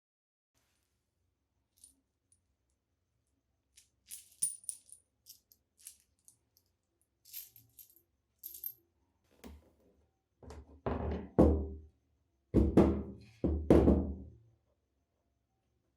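Light metallic clinks and jingles of small metal parts being handled, followed by five or six louder rattling, clattering strokes in the second half.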